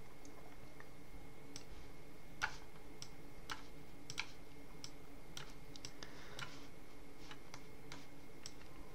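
Scattered, irregular clicks from working a computer's mouse and keyboard, about a dozen in all, the sharpest about two and a half seconds in and just past four seconds, over a faint steady hum.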